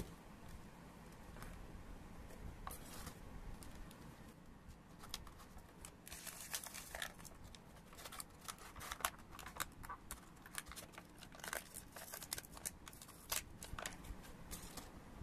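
Clear plastic packaging crinkling and crackling in the hands as true-wireless earbuds and their charging case are unpacked. The crackles are sparse at first and come thick and fast from about five seconds in.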